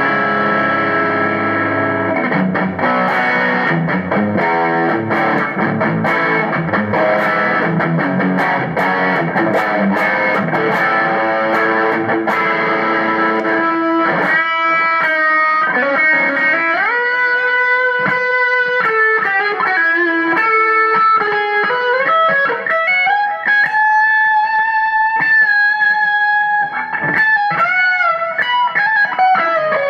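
Electric guitar played through a Zoom G3Xn multi-effects pedal on a distorted preset: thick, dense chord riffing for about the first half, then a single-note lead with string bends and vibrato on long held notes.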